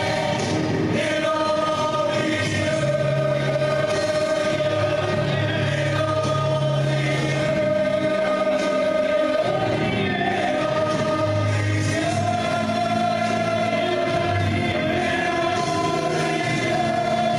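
A choir singing a gospel song with instrumental backing, holding long sustained notes over a steady bass line.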